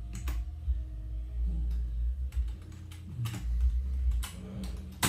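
Computer keyboard keys tapped a few times at irregular intervals, over a steady low hum.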